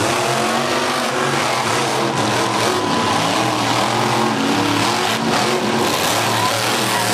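Monster truck engine revving hard, its pitch rising and falling repeatedly as the truck is driven around and lifts its front wheels.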